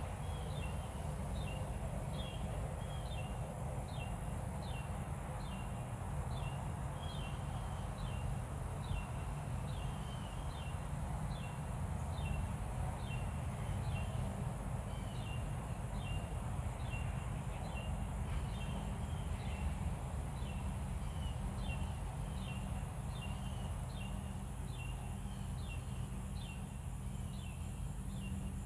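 A small animal's high chirp repeated steadily, about one and a half times a second, each a short falling note, over a low steady rumble.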